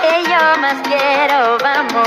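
Music from an instrumental break in a Latin pop song: a lead melody winds up and down over the band.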